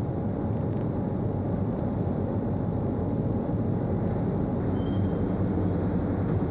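Steady low mechanical rumble of car-factory machinery, running evenly without a break.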